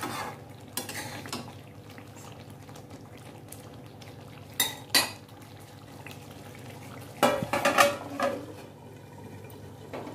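Metal utensils clinking against an aluminium kadhai of thick potato curry, two sharp clinks about halfway through, then a louder metallic clatter a couple of seconds before the end as the aluminium lid is set on the kadhai to cover it for cooking. A steady low hum runs underneath.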